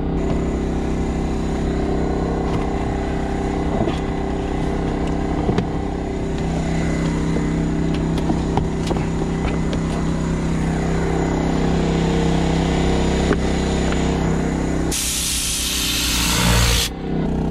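A motor runs with a steady hum all through. Near the end, an air blow gun lets out a loud hiss of compressed air for about two seconds to blow dirt out of the van's footwell.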